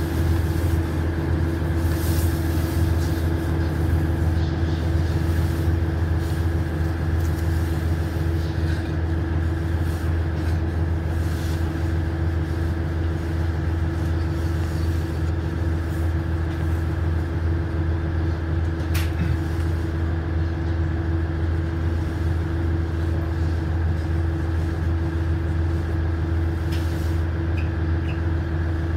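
KiHa 100 diesel railcar's engine idling steadily while the railcar stands at the platform, heard inside the cabin as a low, even hum with a steady higher tone over it.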